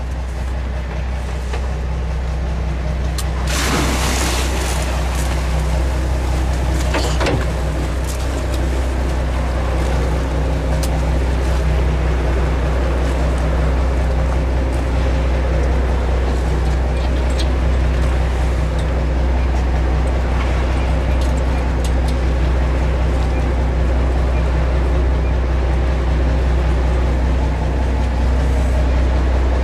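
Pilot boat's engine running with a steady low drone. A loud rush of noise comes about three and a half seconds in, and a shorter one a few seconds later.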